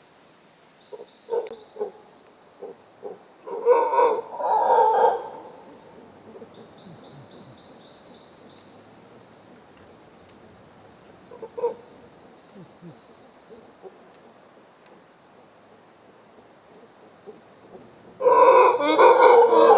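Wild monkeys calling in the treetops: a few short calls about four seconds in, then loud, sustained calls that start near the end, over a steady high-pitched insect drone.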